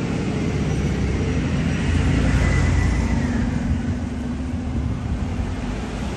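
Street traffic running past, a vehicle's engine rumble swelling to its loudest about two to three seconds in and then easing off.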